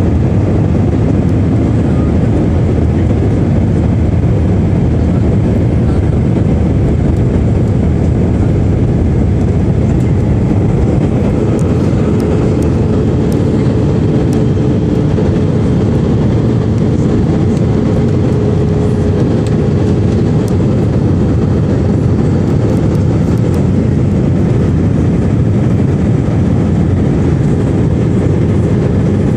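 Steady, loud cabin noise of an Airbus A319 in flight: turbofan engine and rushing airflow heard from inside the cabin beside the engine. A faint steady tone joins it about twelve seconds in and fades out some seconds later.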